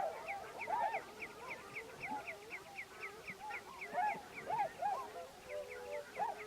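A flock of waterbirds calling together on a lake: many overlapping honking and quacking calls, with a quick run of short, high, falling notes repeating about five times a second behind them.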